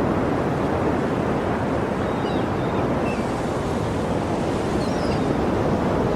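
Sea surf washing steadily on the shore: a continuous rush of waves without distinct breaks, with a few faint short chirps high above it between about two and five seconds in.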